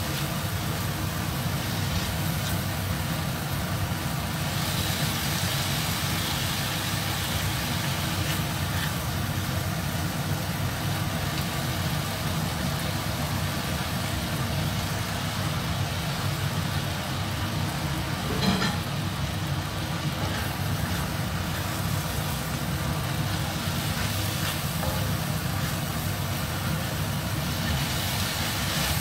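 Vegetables sizzling as they are stir-fried in a stainless steel wok and turned with a silicone spatula, over a steady low mechanical hum. The sizzle grows brighter a few seconds in and again near the end, and there is one sharp knock about eighteen seconds in.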